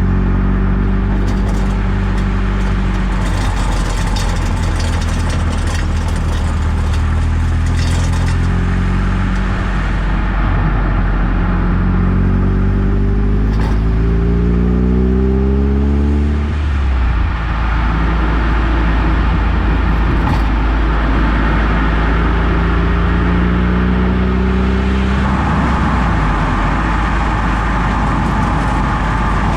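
Eunos Roadster (NA Mazda MX-5) four-cylinder engine and road noise heard while driving, pulling up through the revs twice with a gear change between. In the first several seconds there is a rattling clatter of the kind the owner is hunting as a suspension noise, with single sharp clicks later on.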